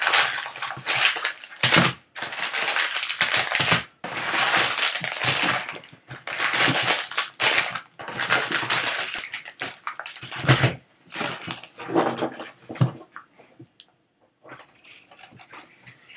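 Foil-wrapped trading card packs crinkling and rustling as they are handled and pulled out of their cardboard box, in several loud stretches with short breaks, quieter near the end.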